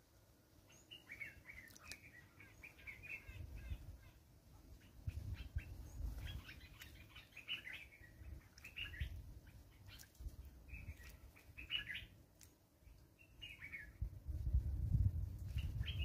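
Kurrichane thrush bathing in shallow water, flapping its wings and splashing in bouts that grow strongest near the end. Birds chirp in short twittering phrases throughout.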